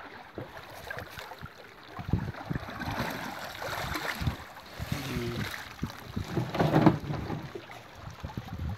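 Wet bag net being hauled in over the side of a wooden boat, with water splashing and sloshing and irregular knocks against the hull. It grows busier from about two seconds in and is loudest nearly seven seconds in, as the fish-filled end of the net comes up.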